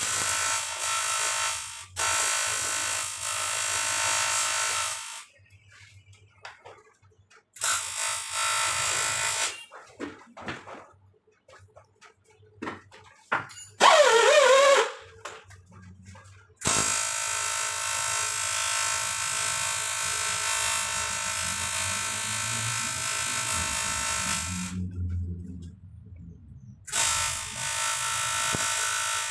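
Electric arc welding on a water jacket: the arc runs as a steady buzzing hiss in four stretches, stopping and restarting between beads. In the longest pause, about midway, there are a few knocks and a brief, very loud wavering squeal as the part is handled.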